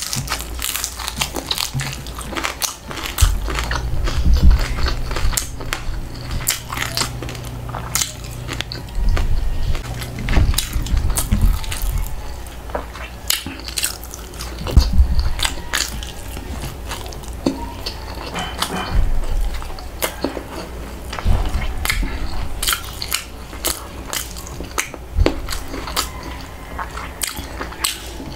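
Close-up chewing and biting of crispy deep-fried food eaten by hand, with many quick crunches and mouth sounds.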